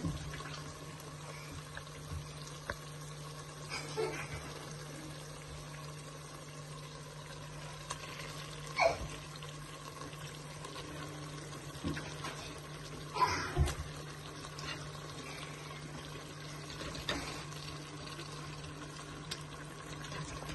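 Kitchen background while cooking: a faint watery hiss over a steady low hum, broken by a few short clatters every four seconds or so.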